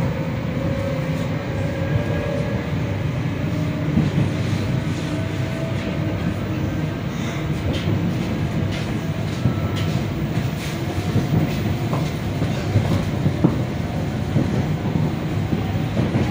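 Moving electric commuter train heard from inside the carriage: a steady rumble of wheels on rails with scattered short clicks and knocks from the wheels over the track. A faint whine rises slowly in the first couple of seconds and fades.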